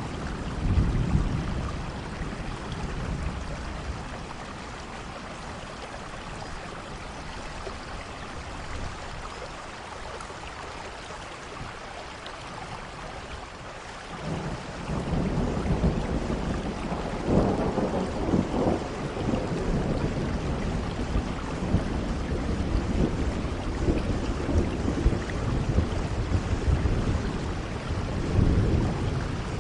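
Steady rainfall with rolling thunder. A rumble comes in about a second in and fades, and from about halfway the rumbling swells back and keeps rolling, with several louder peaks.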